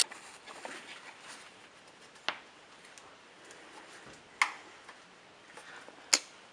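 Three short, sharp clicks or taps about two seconds apart, from tools and parts being handled while the intake piping is refitted, with only faint low background in between.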